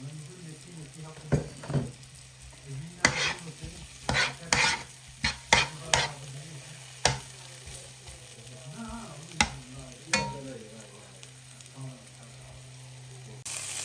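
Onions, garlic, chillies and tomatoes frying in a pan while a utensil stirs them, with a dozen or so sharp knocks and scrapes against the pan. A louder steady hiss starts abruptly near the end.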